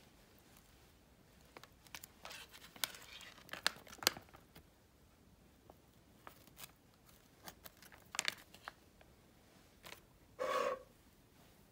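Foil sheet-mask sachet being handled, torn and crinkled as the wet sheet mask is pulled out: scattered tearing, crinkling and small clicks, busiest from about two seconds in and again around eight seconds. A short, louder sound of about half a second near the end.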